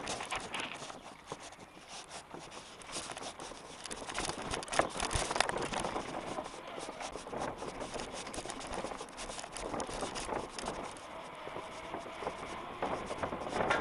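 Mountain bike rolling fast over stone paving and cobbles: a continuous rumble of tyres on stone with dense rattling and clattering from the bike, getting louder from about four or five seconds in.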